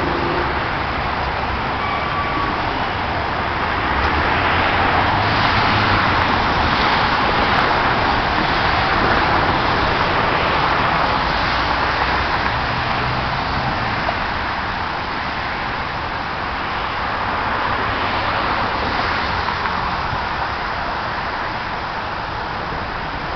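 Boeing 737 airliner's jet engines running at taxi power as it turns onto the runway to line up for take-off. The jet noise is steady, grows louder from about four seconds in and eases slightly near the end.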